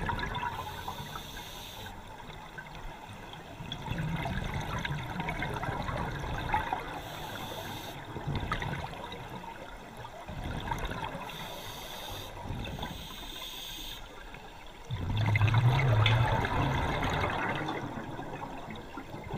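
Underwater sound picked up through a camera housing: a scuba diver's regulator breathing, with surges of exhaled bubbles gurgling every few seconds. The loudest, deepest burst of bubbles comes about three-quarters of the way through.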